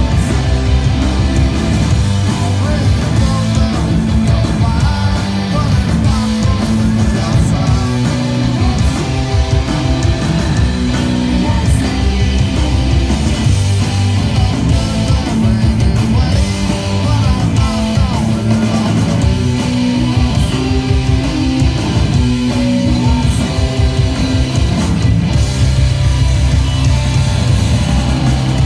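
Live rock band playing loud: electric guitars, bass and drums, with singing.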